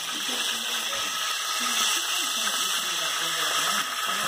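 Hot cooking oil sizzling steadily in a frying pan, emptied of one batch of pork chops and waiting for the next.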